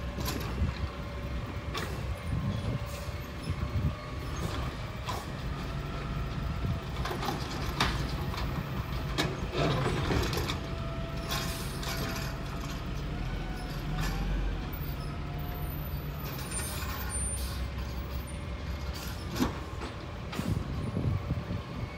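Automated side-loader garbage truck (CCC cab-over with a Wayne Curbtender body) working its trash route: the engine runs steadily under a thin whine while the hydraulic arm lifts and dumps carts, with scattered clanks and knocks from carts and arm.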